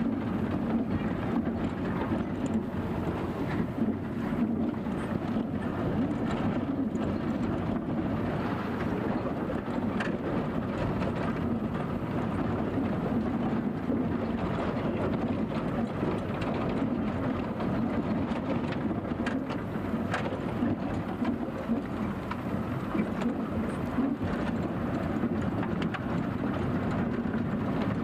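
Steady engine and road rumble heard from inside the cabin of a vehicle driving on a dirt road.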